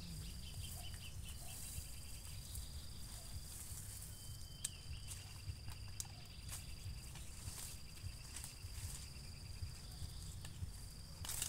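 Insects calling: a steady high-pitched tone that breaks off now and then, with a faster pulsing trill over it. A few sharp clicks and rustles come from weeds being pulled up by hand.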